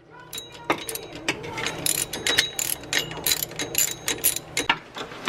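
Hand ratchet clicking in quick, irregular strokes while backing out a 12 mm bolt on the serpentine belt tensioner pulley assembly.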